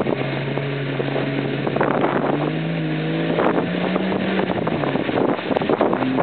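Lifted Jeep Cherokee's engine pulling under load as the tyres churn through deep mud, its pitch climbing past the middle and dropping again near the end, with mud and water splashing around the wheels.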